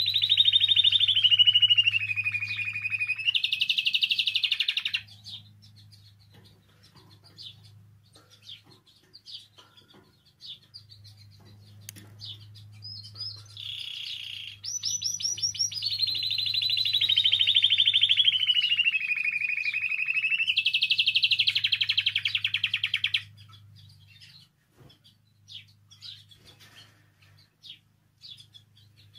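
Spanish timbrado canary singing. It sings two long phrases of fast rolling trills that slide down in pitch and then hold: the first ends about five seconds in, and the second runs from about fourteen to twenty-three seconds in. Soft scattered chirps fall between and after the phrases.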